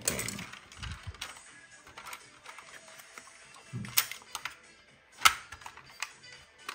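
Diecast model car and its packing being handled: paper wrapping rustles at the start, then scattered sharp clicks and taps of plastic and metal parts, the loudest about four and five seconds in.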